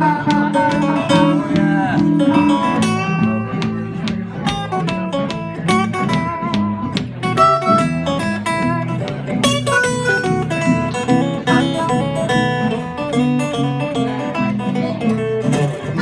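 Two acoustic guitars and a harmonica playing an instrumental passage, with steadily picked guitar notes under the harmonica's held, bending notes.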